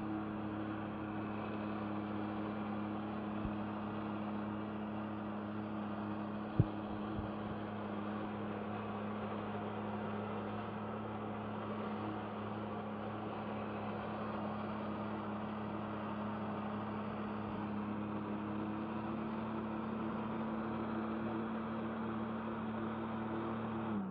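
Jet ski engine running at a steady pitch, with one sharp knock about six and a half seconds in.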